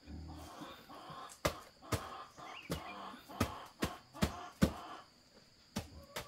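Chopping with a blade: a run of sharp blows, about two a second, then a short pause and two more blows near the end.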